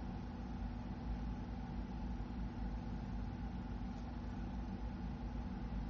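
Steady low background hum with a constant low drone and faint hiss, in a pause between sentences.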